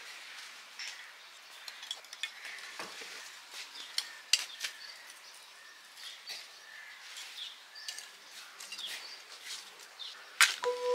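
Charcoal lumps and wooden kindling sticks clinking and knocking as they are set by hand into a steel grill tray, with a sharp click near the end. Birds chirp faintly in the background.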